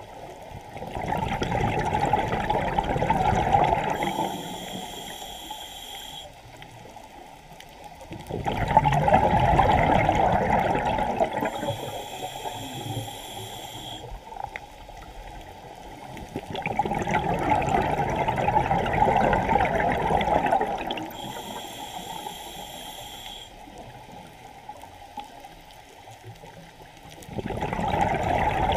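Scuba diver breathing through a regulator, heard underwater: a short high hiss on each inhale, then a burst of bubbling exhaust bubbles lasting about four seconds. The cycle repeats roughly every eight seconds, four exhales in all.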